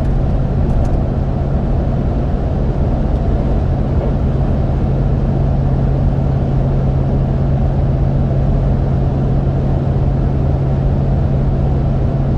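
Cabin road noise of a Toyota Sequoia cruising at about 70 mph on Mickey Thompson Baja Boss A/T all-terrain tires: a steady rush of tire noise with a constant low hum under it. The driver puts part of the noise down to the tread's side biters, which stick out further than on his previous tires.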